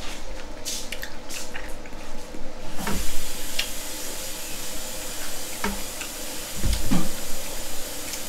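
Wet squishing and scattered sharp clicks of hands cracking and peeling sauce-covered crawfish from a seafood boil, with a couple of duller thumps about three seconds in and near seven seconds.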